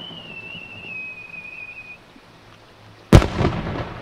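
Aerial firework shell climbing with a high whistle that slides slightly lower and stops about two seconds in. About three seconds in it bursts with one loud bang that trails off over most of a second.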